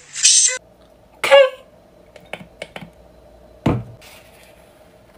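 A few light clicks and taps, then one heavier knock about three and a half seconds in, from a white ceramic bowl being handled.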